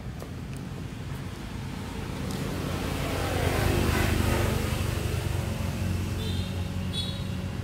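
A motor vehicle driving past: its engine sound swells to a peak about halfway through and then fades. Two short high chirps follow near the end.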